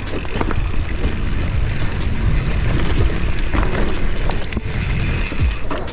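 Mountain bike riding down a rough, muddy trail, with a steady rumble from the tyres and short clatters from the bike over roots and ground.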